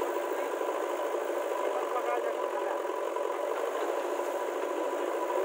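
Heavy machinery's diesel engine running steadily.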